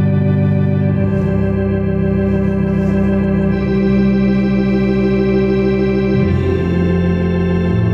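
Music of slow, sustained held chords, changing to a new chord every two to three seconds.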